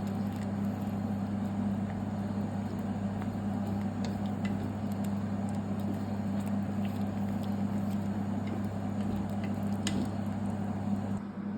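Steady low machine hum, like a kitchen appliance or fan, with scattered light clicks and taps of cooking utensils; the hum drops abruptly near the end.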